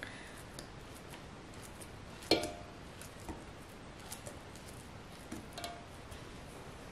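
Soft taps as a knife cuts banana pieces that drop into a stainless-steel mixer-grinder jar. There is one clearer knock with a short metallic ring a couple of seconds in, and a fainter one later.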